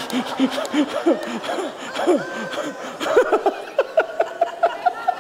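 Audience laughing at a joke's punchline, with individual laughs in quick repeated 'ha-ha' pulses that grow loudest in the second half.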